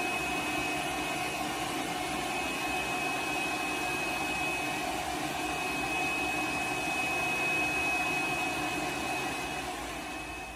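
Pet grooming blow dryer running steadily, blowing air into a dog's coat: a rush of air with a high whine over it, easing off slightly near the end.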